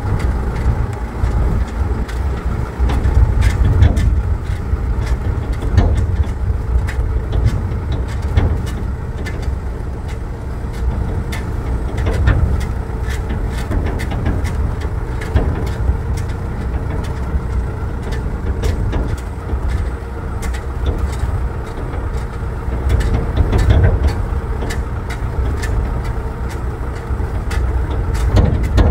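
A motor vehicle's engine running while travelling, with a heavy, steady low rumble and frequent short knocks and rattles.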